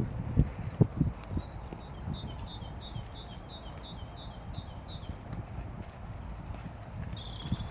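A few sharp thumps in the first second or so, then a small bird chirping, a quick run of short high notes at about four a second.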